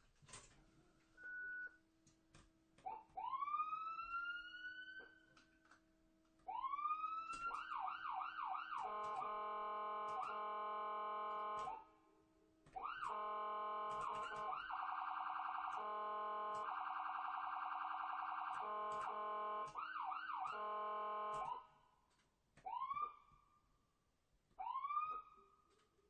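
Ambulance electronic siren cycling through its patterns: slow rising whoops, then quick repeated yelps, then a steady blaring tone and a rapid warble through the middle, with a few more rising whoops near the end.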